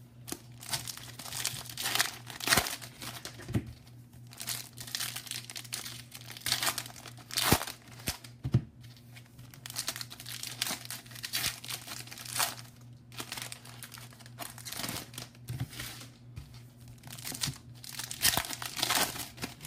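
Baseball card pack wrappers being torn open and crinkled, in irregular rustles and tears, over a faint steady low hum.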